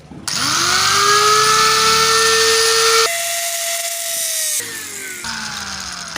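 Electric drill spinning up and running against the metal of the transmission case, a steady motor whine with a cutting hiss over it. About three seconds in the load comes off and the whine jumps higher; then the motor is switched off and winds down with a falling whine.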